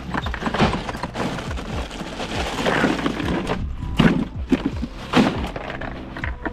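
Ice cubes poured and shaken from a plastic bag into a cooler over fish, rattling and crunching in several separate bursts, the loudest about four and five seconds in.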